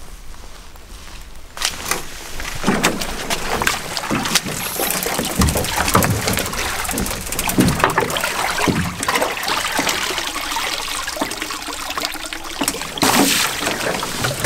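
A canoe being launched from the shore: its hull knocking and scraping as it is tipped and slid down into shallow water, with the water sloshing and splashing around it. About a second and a half in the knocks and scrapes begin and keep on irregularly, louder again near the end.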